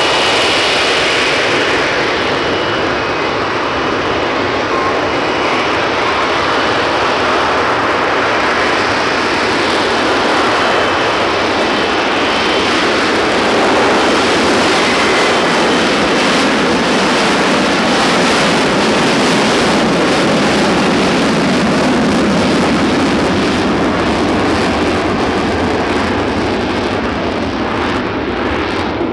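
Lockheed Martin F-35B Lightning II in the hover, its jet engine and shaft-driven lift fan running very loud and steady, easing slightly near the end as the jet moves off.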